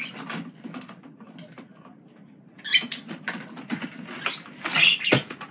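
A small parrot scrabbling over a plastic swing-lid bin: claws scratching and tapping on the plastic, and the lid clacking as it swings. There are a few short chirps around the middle and a sharp knock of the lid near the end.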